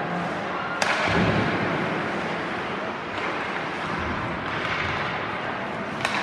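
Ice hockey game sounds in an arena: a steady wash of rink noise, a sharp crack about a second in, and a lighter knock near the end.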